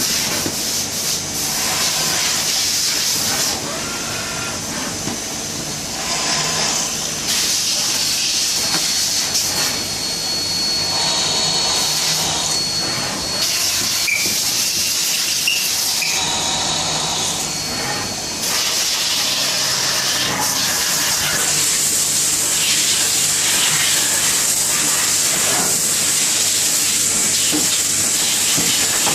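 Numerically controlled machine tool running: a steady hiss with a thin high whine that comes in for several seconds mid-way, and the sound shifts abruptly several times as the machining changes.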